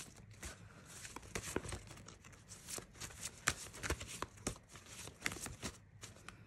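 A deck of oracle cards shuffled by hand: many quick, irregular card clicks and sliding rustles.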